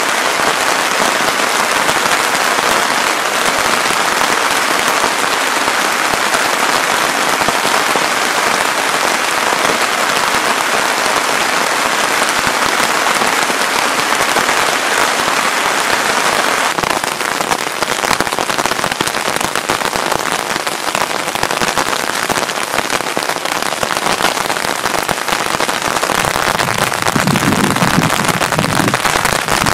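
Heavy rain falling steadily on a nylon camping tarp overhead, a dense, even hiss. A lower, uneven sound joins in near the end.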